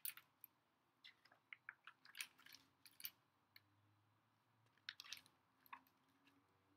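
Faint crinkling and ticking of a hardcover picture book's paper pages being handled and turned, in scattered clusters of short crackles.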